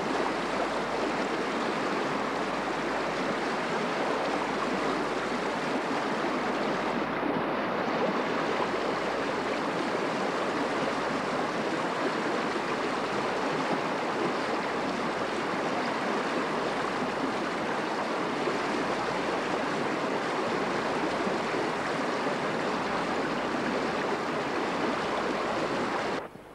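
Mountain river rushing over rocks, a steady rush of water that cuts off suddenly near the end.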